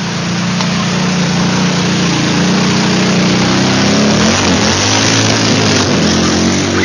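Quad bike (ATV) engine pulling through deep muddy water, with the splash and churn of water and mud. The engine runs steadily, then revs up and down about four seconds in as the quad passes close by.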